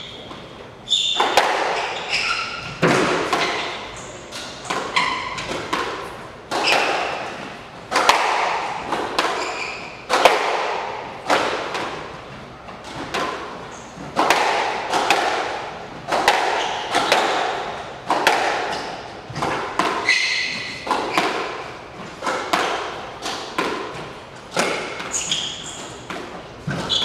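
Squash rally: the hard rubber ball cracked by rackets and smacking off the court walls, about one hit a second, each with a short echo. Short high squeaks of court shoes on the wooden floor come between the hits as the players lunge and turn.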